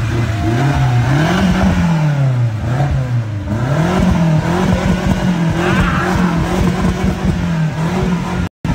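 BMW X6's engine being revved while parked: the engine note climbs and drops back twice, then holds at raised revs before cutting off suddenly near the end.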